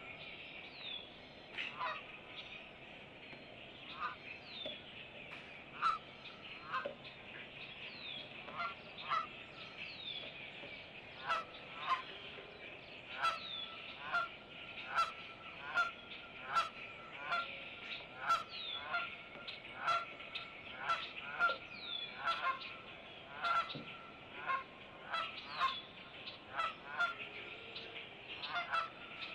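Repeated short, harsh animal calls, a few seconds apart at first and then about once a second after about ten seconds, over birdsong with short falling whistles.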